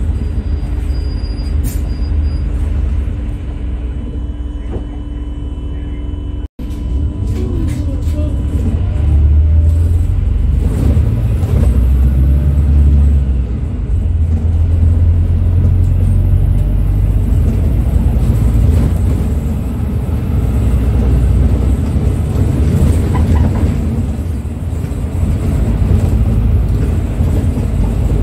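Interior ride noise of a Volvo B5LH hybrid double-decker bus under way: a steady low rumble of the drivetrain with road noise. The sound cuts out for an instant about six and a half seconds in, and it is louder from about nine seconds on.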